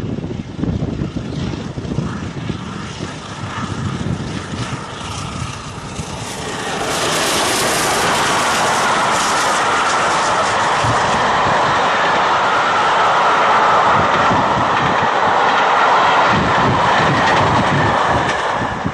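Gusty wind buffeting the microphone. About seven seconds in, the steam-hauled train goes close by: A1 Pacific 60163 Tornado and then its thirteen coaches, with a steady, loud rush and clatter of wheels on the rails as the coaches keep passing.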